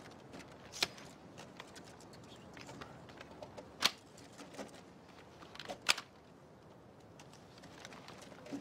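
Sharp metallic clicks of bayonets being fixed onto rifles: one, another about three seconds later, then a quick pair, over a faint hiss.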